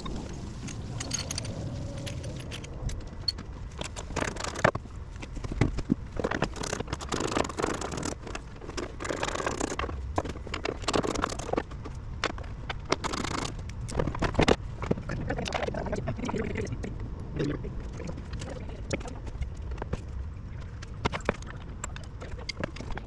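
Hand tools and metal and plastic parts clinking, knocking and scraping in a vehicle's engine bay as the radiator fan shroud is worked loose. Many short sharp knocks, with stretches of scraping.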